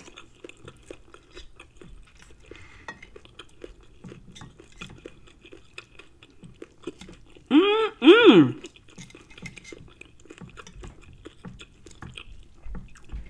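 Close-miked chewing of cooked chicken, with soft clicks and scrapes of a knife and fork cutting meat on a plate. About seven and a half seconds in comes a loud two-note closed-mouth hum, "mm-mm".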